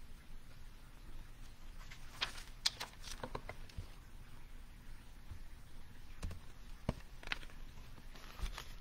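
Quiet, scattered clicks and soft rustles of a reference book being handled and its pages leafed through, over a low room hum.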